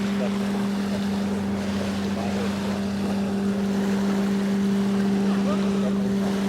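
A steady, unchanging low motor hum over wind noise on the microphone.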